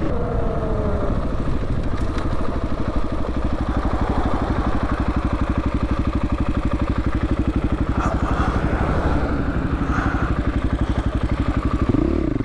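2022 Husqvarna FE501s single-cylinder four-stroke dirt bike engine running under way, with an even, fast pulsing exhaust note. The engine pitch falls briefly in the first second, then holds steady.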